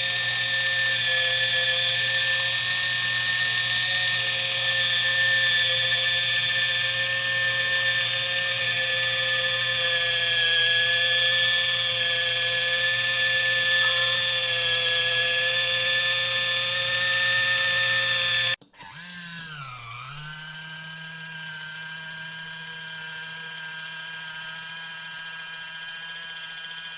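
Battery-powered electric can opener's motor whirring steadily. It cuts off suddenly about two-thirds of the way through, and a quieter whir follows that sags briefly in pitch before steadying.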